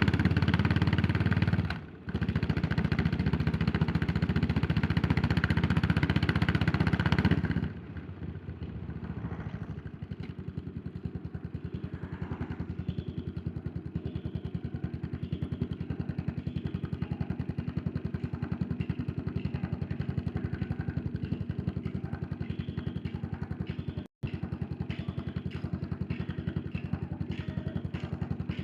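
Yamaha SR400 single-cylinder four-stroke engine, heard from the rider's seat, pulling hard with a brief dip about two seconds in. About seven seconds in the throttle closes and the engine settles to a much quieter, even thumping beat for the rest.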